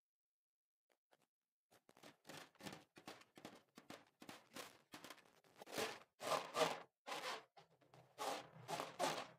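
Hands rubbing and squeezing a slime-filled rubber balloon, in quick repeated strokes of about two to three a second. They start about two seconds in and get louder toward the end.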